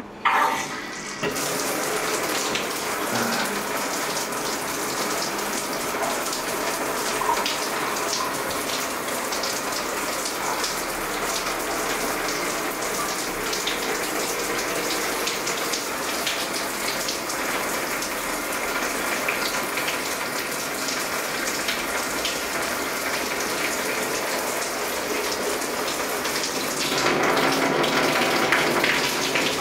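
Shower turned on just after the start and running steadily, water spraying onto the tiled tub surround; the spray gets a little louder near the end.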